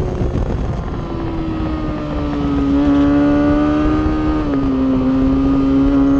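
Racing motorcycle engine running at high revs, its pitch holding nearly steady with a slight fall and a small step down about four and a half seconds in.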